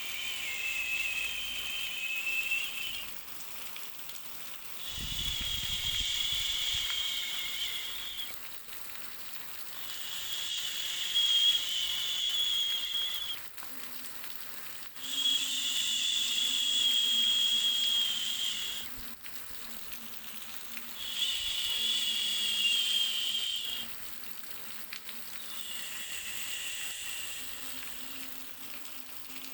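Hissing noise with a high, wavering whistle in it, swelling and fading in waves of about three seconds, six times over. A faint low hum comes in about halfway through.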